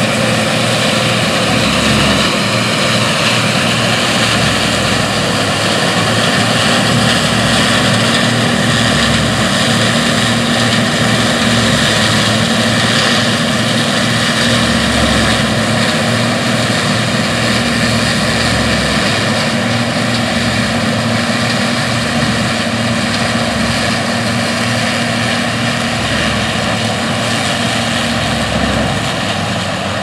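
John Deere 7720 Titan II combine running steadily under load while harvesting soybeans: a loud, even drone of the diesel engine and threshing machinery, mixed with a tractor running alongside pulling a grain cart.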